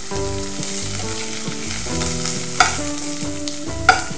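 Sliced onions sizzling in hot oil with whole spices in a stainless steel pressure cooker, stirred with a steel spoon that scrapes the pan. The spoon clinks sharply against the pan about two and a half and four seconds in.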